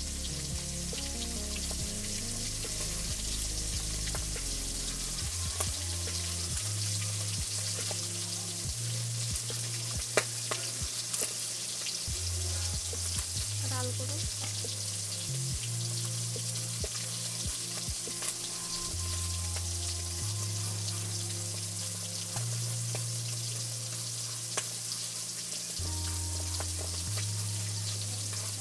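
A steady hiss with scattered small clicks and scrapes as a potato is peeled against an iron boti blade, over background music with low bass notes that change every second or two.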